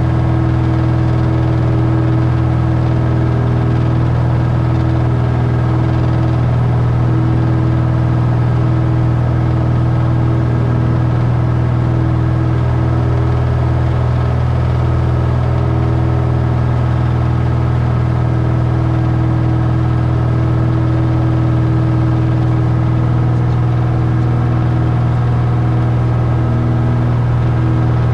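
Cessna 172's piston engine and propeller droning steadily in flight, heard from inside the cockpit, with an even, unchanging pitch.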